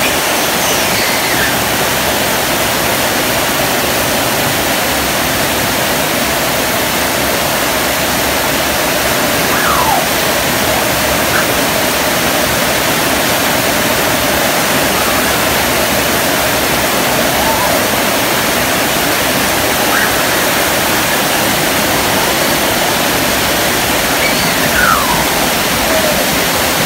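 Heavy tropical downpour drumming steadily on corrugated metal roofs and leaves, a dense even hiss of rain. A few short falling whistles sound over it now and then.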